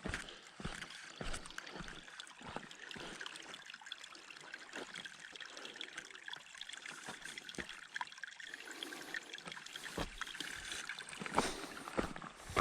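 Steady trickling of a small creek, with scattered footsteps on the dirt trail that come more often and louder near the end.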